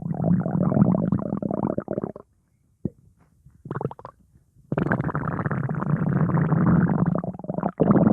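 Stomach growling: a long rumble for about two seconds, a couple of short gurgles, then a second long rumble through the second half.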